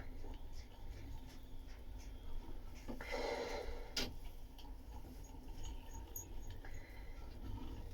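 Quiet handling sounds of hand fibreglass work on resin-wetted glass cloth: scattered small scrapes and ticks, a short rustle about three seconds in, a sharp click a second later and another brief rustle near the end.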